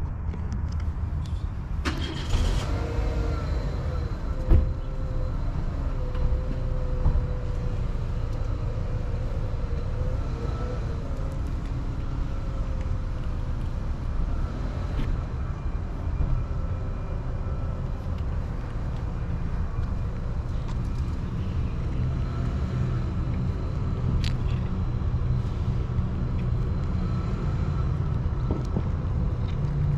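Steady low rumble of road traffic, with a vehicle engine droning through roughly the first ten seconds and a couple of short knocks early on.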